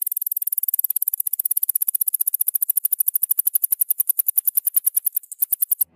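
A mouse calling: a long, rapid trill of very high-pitched squeaks repeated many times a second, which cuts off near the end.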